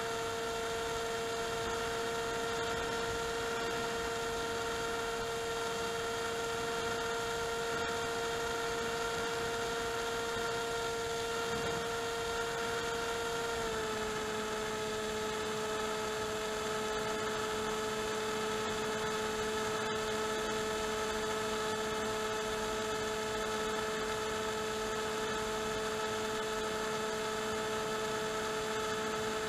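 Electric motor and propeller of an AXN Clouds Fly foam RC plane in flight, heard from its onboard camera as a steady whine over light wind rush. About fourteen seconds in, the pitch steps down slightly and holds there.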